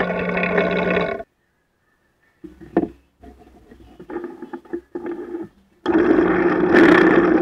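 Benchtop drill press running with a steady motor hum, boring into a wooden board. The sound cuts off abruptly about a second in, followed by a pause and quieter knocks and clatter. Near the end the drill press runs again, with a harsher surge as the bit cuts into the wood.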